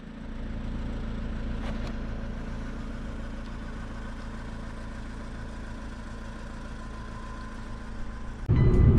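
A steady low engine hum, like a vehicle running at idle or a low, even speed. Loud music cuts in near the end.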